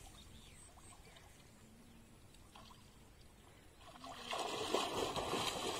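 Water splashing as a swimmer thrashes her arms and legs in pond water. It starts suddenly about four seconds in, after a quiet stretch, with many quick uneven splashes.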